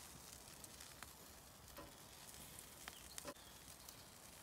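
Very faint sizzle of sauce-coated meat over hot charcoal, with a few small clicks spread through.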